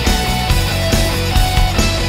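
Background rock music with a driving drum beat and held pitched notes.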